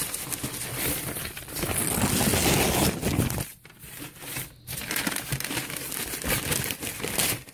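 Newspaper packing being unfolded and crumpled by hand: a dense crackling rustle, loudest about two to three seconds in, with two brief pauses around the middle.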